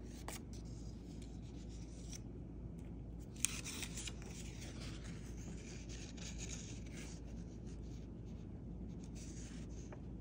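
Paper rustling and rubbing as a printed sheet is handled and swapped, with one sharp click about a third of the way in, over a steady low hum.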